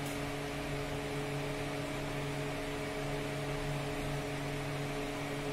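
Steady background hum in the room: several unchanging tones over a light hiss, with no distinct knocks or scrapes.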